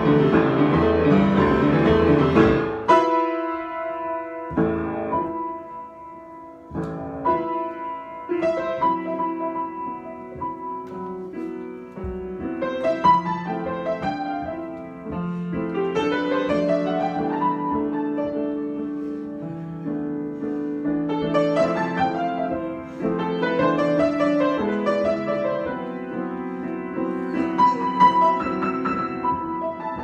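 Solo grand piano improvisation. It opens with dense, loud playing that breaks off about three seconds in to sparse, quieter notes and chords, then builds again from about halfway with rising runs.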